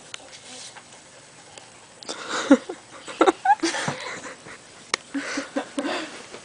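A toddler's short breathy vocal sounds and squeaky babbling, starting about two seconds in after a quiet start.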